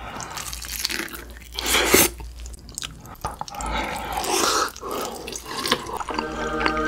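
Close-up wet, sticky biting and chewing of a drumstick of sweet-spicy sauced (yangnyeom) fried chicken, in irregular bursts with the loudest bite about two seconds in. Music comes in near the end.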